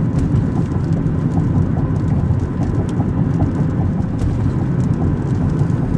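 Steady low rumble of a car driving, heard from inside the cabin: road and tyre noise with wind, with scattered faint ticks over it.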